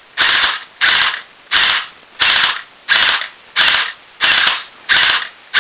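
Airsoft electric gun (AEG) gearbox firing in short bursts controlled by a Burst Wizard King Kong MOSFET: a quick rattle of shots lasting about a third of a second, repeated about every two-thirds of a second, around nine bursts in all.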